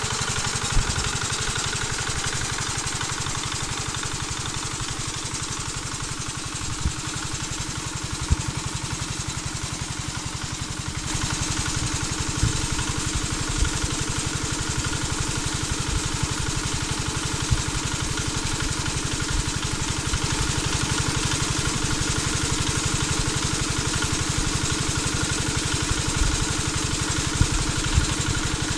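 Small engine driving an irrigation water pump, running steadily with a fast, even low thudding, over water gushing and splashing out of the pump's outlet pipe. The gushing grows louder about eleven seconds in.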